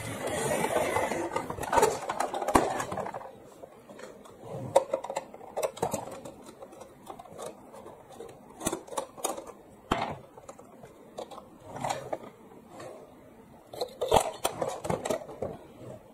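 Hard plastic toy train being handled on a table: a steady rolling rattle for the first three seconds, then scattered clicks and scrapes as the toy is turned over and a small screwdriver undoes its battery-cover screw.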